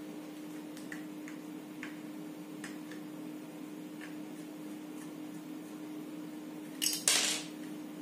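Small metal clicks and scrapes of a screwdriver working at the capacitor clamp on a ceiling fan motor's shaft, a few faint ticks then a louder metallic clatter about seven seconds in. A steady low hum lies underneath.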